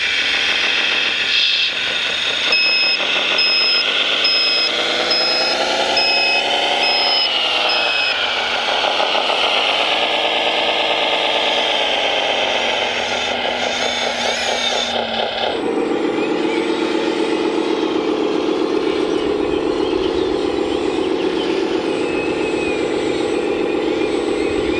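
Radio-controlled model trucks and construction machines running: electric drive motors and gears whining, rising and falling in pitch, with a series of evenly spaced beeps for several seconds near the start. About halfway through, the sound changes to a steadier, lower hum.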